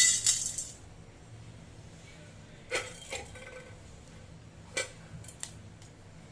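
Kitchen utensils clinking and knocking: a loud hissing, ringing burst at the start that dies away within a second, then a few light, sharp clinks spread through the rest.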